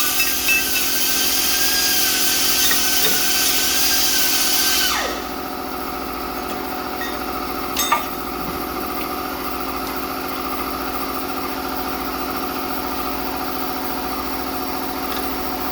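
Machinery running with a high whine and hiss that wind down about five seconds in, the whine falling in pitch, leaving a steady lower hum; a single sharp click about eight seconds in.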